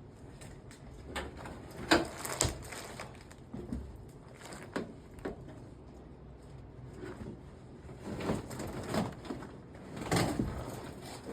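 Old, soaked carpet being pulled and torn up from a pickup cab floor: irregular rips, rustles and knocks, the loudest about two seconds in and again near the end.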